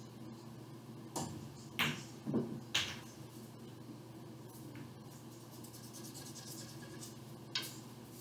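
A pool shot: the cue tip strikes the cue ball about a second in, the cue ball clicks sharply into an object ball, and the object ball drops into a pocket, with one more knock right after. A single lone click near the end.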